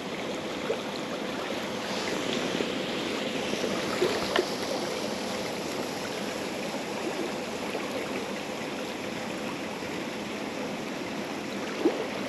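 River water running steadily, with a couple of brief faint knocks.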